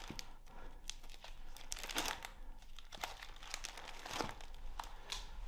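Soft paper rustling and crinkling as scrapbook pages are handled and turned, with scattered irregular rustles and light clicks.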